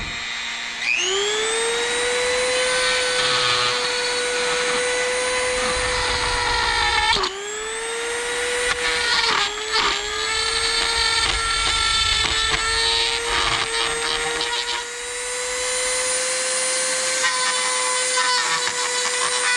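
Dremel rotary tool spinning up about a second in, then running at a steady high whine while its bit cuts a notch into a plastic earmuff cup. The pitch dips briefly twice, about seven seconds in and again around nine to ten seconds, as the bit bears on the plastic.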